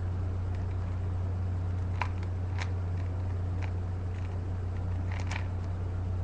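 Rubik's Cube being twisted by hand: a handful of short plastic clicks, irregularly spaced, mostly in the second half. Under them a steady low hum.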